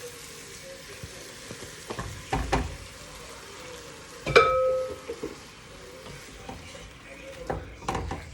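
Sofrito being stirred into a pot of sautéing chicken and vegetables: a steady sizzle with a spoon scraping and knocking against the pot. About four seconds in, the spoon strikes the pot once, loudly, and it rings briefly.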